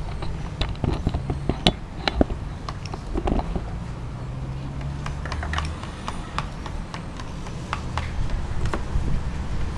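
Small spoons clicking and clinking against glass condiment jars and metal bowls in scattered, irregular taps, over a steady low background rumble.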